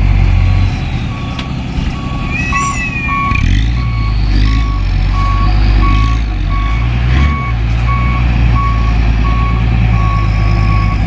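Dump truck's reversing alarm beeping about twice a second over its diesel engine running, as the truck backs up. A short higher warbling tone cuts in about two and a half seconds in.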